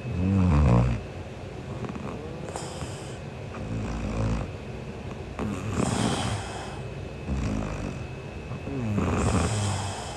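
A sleeping woman snoring: a low rattling snore on each breath in, with an airy breath out between, about three breaths in all. The first snore is the loudest.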